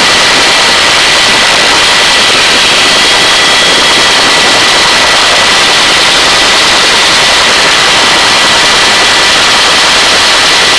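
Helicopter turbine and rotor noise in a hover, loud and steady with a thin high whine, heard at the open cabin door.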